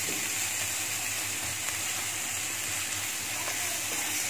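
Onion-tomato masala sizzling steadily in hot oil in a frying pan while a spatula stirs it. The tomatoes are being fried until soft.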